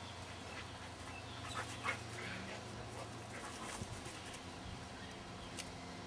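Old English Sheepdogs, an adult and a puppy, play-fighting, with a few short yips and whimpers about one and a half to two seconds in and brief sharp sounds later on.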